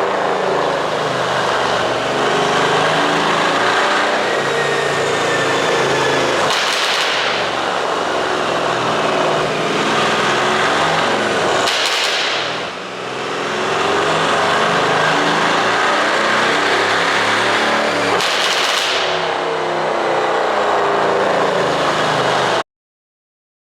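Mercedes-AMG GT C's twin-turbo V8 exhaust running and revving, with repeated pops and crackles from a pop-and-bang ECU tune. The sound cuts off abruptly near the end.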